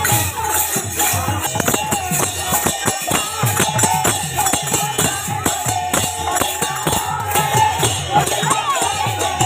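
Devotional procession music: a drum beaten in a quick steady rhythm with jingling hand cymbals, and a group of voices chanting along.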